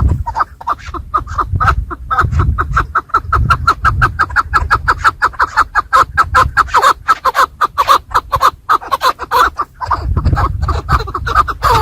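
Chukar partridge calling: a fast, steady run of short chuck notes, about seven a second.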